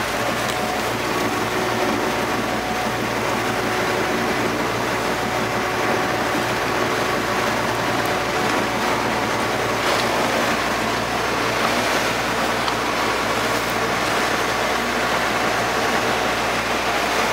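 Tour boat under way: its engine runs steadily beneath a constant rush of water and wind past the hull.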